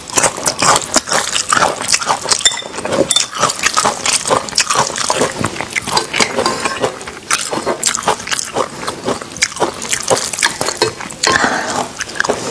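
Close-miked wet slurping and chewing of glass noodles in sauce, a steady run of quick sticky clicks and smacks.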